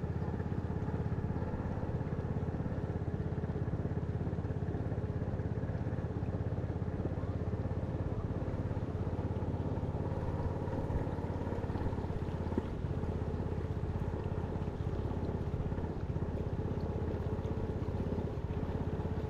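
Small boat's engine running steadily at an even speed, a constant low drone.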